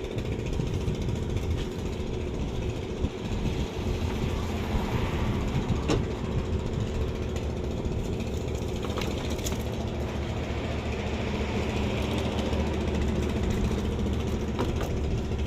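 An engine idling steadily in the background, with a few light clicks and taps, about six seconds in and again around nine seconds in.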